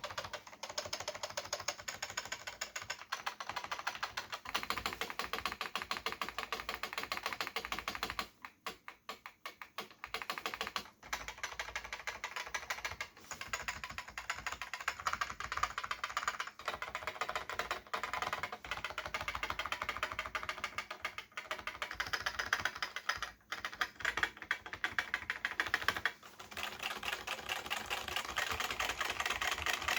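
Fast continuous typing on a Sejin SKM-2000 keyboard with Futaba MA switches and ABS keycaps, a dense stream of clicky keystrokes with a few short pauses, the longest about eight seconds in.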